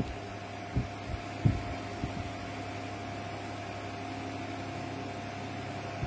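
Steady low mechanical hum with a faint steady tone riding above it, like a running fan or appliance. Three short, dull low thumps fall in the first two and a half seconds, the loudest about one and a half seconds in.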